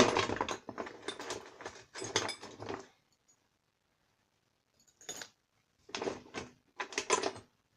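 Metal hand tools clattering and clinking together as they are rummaged and handled in an old toolbox: a dense jumble of clinks for about three seconds, then a pause and a few shorter bursts of clinking near the end.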